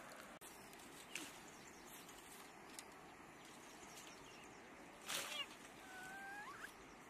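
Quiet outdoor background with a few faint clicks and a brief scratchy noise about five seconds in, followed by a short pitched call that rises at its end.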